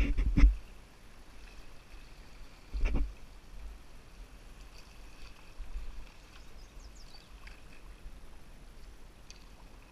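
Canoe running down a fast, narrow river channel: a faint steady rush of water under the hull, with two heavy thumps, one at the start and one about three seconds in.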